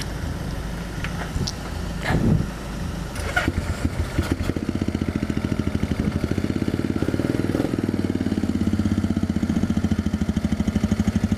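Yamaha XT 250's single-cylinder four-stroke engine starting about four seconds in and then idling with a steady, rapid beat.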